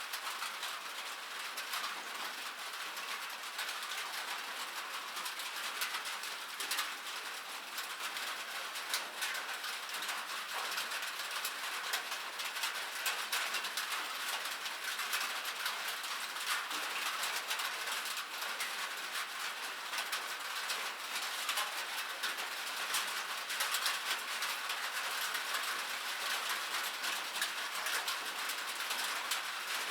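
Steady rain falling on metal: a dense hiss of drops with many sharp ticks as they strike.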